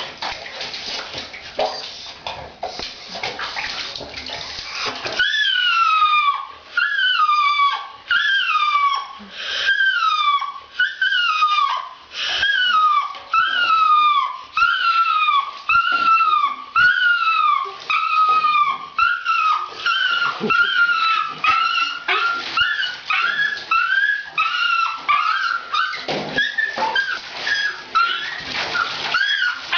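A dog crying in distress while being bathed: a long run of high wailing cries, about one a second, each one falling in pitch. For the first five seconds only splashing, running water is heard, before the cries begin.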